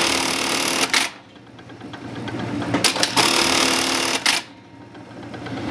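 Atlas USA AT-1850 42-stitch bartack sewing machine running its tack cycle at high speed twice. The first burst of stitching cuts off about a second in; the second starts about three seconds in and stops sharply about a second and a half later.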